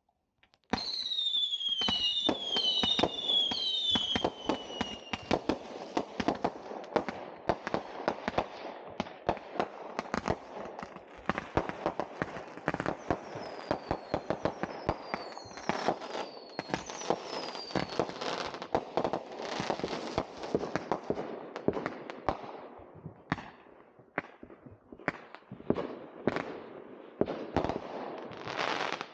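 Small consumer firework cakes firing: a run of whistling shots that fall in pitch in the first few seconds, then a dense barrage of rapid pops and bangs, with more falling whistles about halfway through. The shots thin out to scattered pops near the end.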